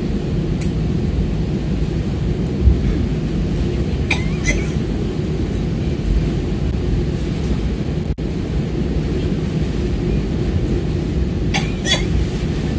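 Steady low rumble inside an airliner cabin during a heavy downpour, with a couple of brief clicks about four seconds in and near the end; the sound cuts out for an instant about eight seconds in.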